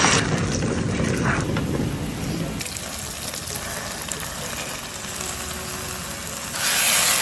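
Blended chili and onion paste for sambal sizzling as it fries in hot oil in a wok, with a spoon stirring it. The sizzle is loudest at the very start and swells again near the end.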